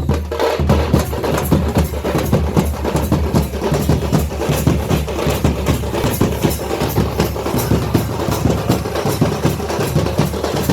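Upbeat background music with a fast, steady percussive beat and heavy bass.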